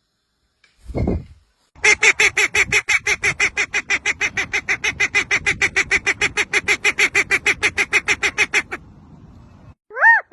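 A bird calling in a rapid run of repeated nasal honks, about seven a second, for some seven seconds. A single low thump comes about a second before the calls.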